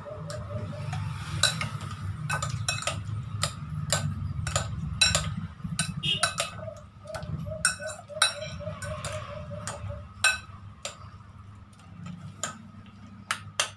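Metal fork clinking and scraping against a glass bowl as a soft salad is stirred and mashed: irregular sharp clinks, several a second at times, over a low steady hum.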